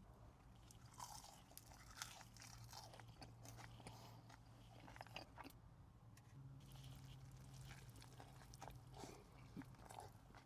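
Faint close-up chewing with crunching: irregular small crackles and clicks of food being bitten and chewed.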